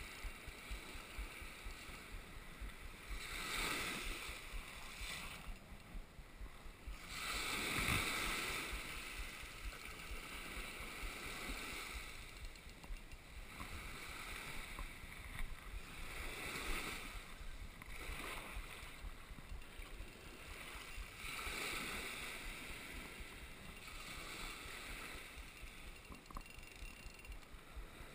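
Small waves breaking and washing up the sand in surges every four to five seconds, the loudest about eight seconds in.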